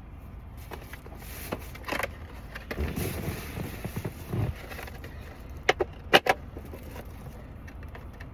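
Packaging being handled and pulled at while trying to open it, rustling for a few seconds, then several sharp clicks and snaps about six seconds in. A steady low rumble of a car interior sits underneath.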